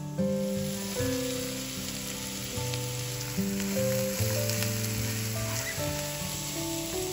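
Celery, sliced mushrooms and red onion sizzling in oil in a frying pan as they are stirred with a spatula; the hiss thickens about a quarter second in. Background music plays over it.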